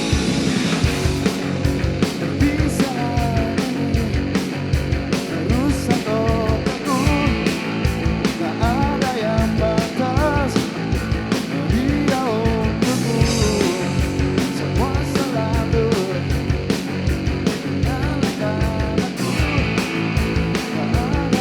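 A rock band playing live at full volume, the drums keeping a fast, steady beat under a melodic line and a dense low end of guitar and bass.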